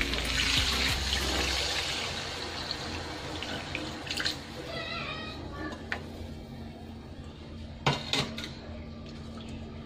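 Water poured into a hot pan of sautéed garlic, onion and fried chicken pieces, hissing loudly at first and dying down to a quieter simmer over the first couple of seconds. A few sharp knocks come around the middle and again near the end.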